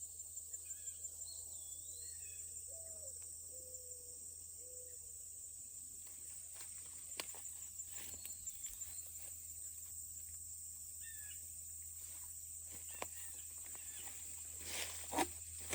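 Late-summer insect chorus, a steady high-pitched trill, with a few short bird chirps early on. From about six seconds in, footsteps and rustling through tall plants, with one louder rustle near the end.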